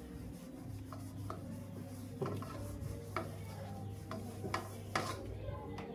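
A plate being scrubbed by hand: soft rubbing with light clicks and taps of crockery scattered at irregular intervals.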